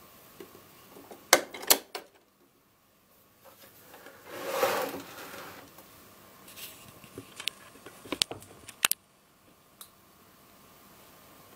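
Clicks and knocks from handling a Tchibo Cafissimo Mini capsule coffee machine: two sharp clicks about a second in, a short rush of noise midway, and a quick pair of clicks about eight seconds in as the capsule lever on top is lifted open.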